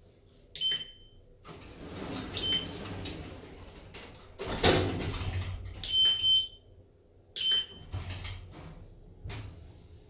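Schindler 3300 lift's car keypad giving short high-pitched beeps as floor numbers are keyed in, four times, one of them a longer double beep. About halfway through, the lift's automatic sliding doors run shut and close with a thud, the loudest sound here.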